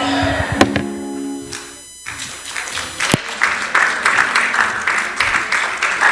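Church music: sustained chords ring for about two seconds. After a brief dip, a congregation applauds over the music.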